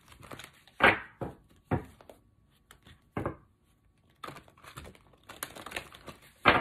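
Tarot cards being shuffled by hand: irregular card slaps and rustles, with a scatter of quick soft flicks in the later part and the loudest slap near the end.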